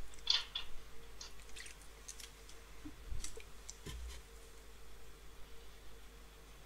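A scatter of light clicks in the first few seconds, then two soft low taps, over a faint steady hum.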